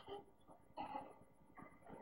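Near silence: a few faint, short sounds from a film playing on a television, heard through the TV's speaker.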